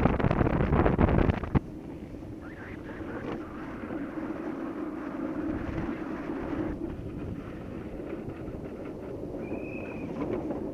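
Wind buffeting the microphone of a gravity kart running downhill, heavy for the first second and a half and then dropping suddenly to a steadier rush of wind and tyres rolling on asphalt. A short high-pitched squeal sounds near the end.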